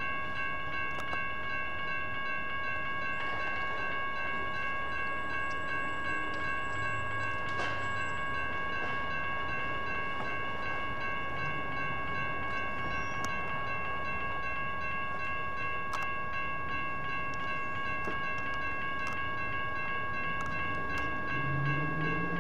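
Railroad crossing warning bells ringing continuously as the signals activate, several bells sounding together in a steady ring. A low sound joins in near the end.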